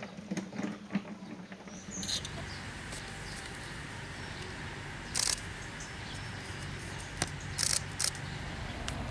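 Rustling in grass over a steady outdoor background hiss, with a few short, sharp hissy rustles about halfway through and near the end, as a tigress and her cub move about on the ground.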